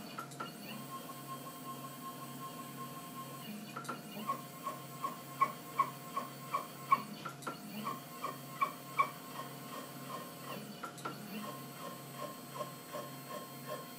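Stepper motors drive the axes of a home-made CNC router built on a Proxxon KT150 cross table, moving the table through an all-axis sliding test with a steady pulsing whine. In the middle stretch the whine is joined by louder, rhythmic clicks, about two or three a second.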